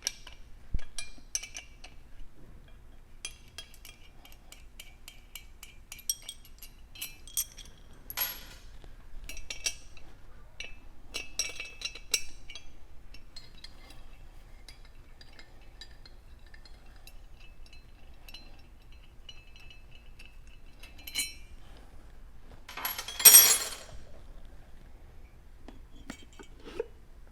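Metal tools and regulator parts clinking and clanking as the spring tower is worked off a gas pressure regulator: scattered sharp metallic clicks with a bright ring, in short clusters, and one louder clatter lasting about a second near the end.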